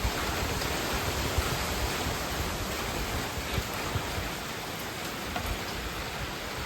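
Steady hurricane rain and wind, with gusts buffeting the microphone in scattered low thumps.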